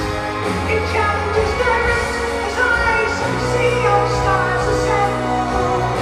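Live progressive rock band playing, heard from the audience: sustained keyboard chords over held bass notes, with a high lead vocal gliding above them.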